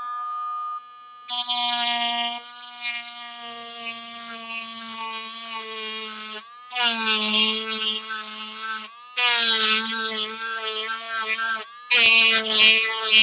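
Cordless rotary tool fitted with a small diamond ball burr, its motor running with a steady high whine. In the second half come three spells of louder grinding as the burr cuts shallow burrows into the work.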